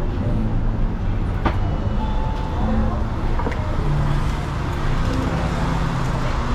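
City street ambience: road traffic running past, with passers-by talking and a couple of short clicks.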